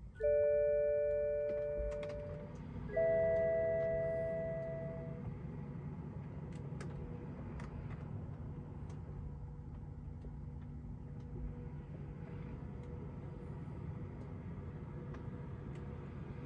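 The BMW X5's dashboard warning gong chiming twice, about three seconds apart, each chime a ringing tone that fades away, then a steady low hum. The gongs go with a check-control warning, a 'Brake pads' message coming up on the dash screen while a diagnostic scan tool reads the car's control modules.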